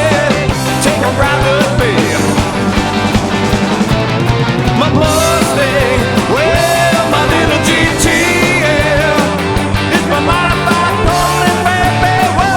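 Rock music without singing: an instrumental passage with a lead line that bends and wavers in pitch over bass and a steady drum beat.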